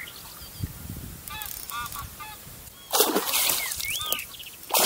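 A hooked pike thrashing and splashing at the water's surface, loudest about three seconds in and again near the end. Before that, geese honk a few times.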